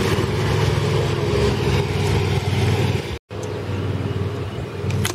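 Zero-turn riding lawn mower engine running steadily while mowing. The sound cuts out completely for a moment about three seconds in, then the engine hum carries on.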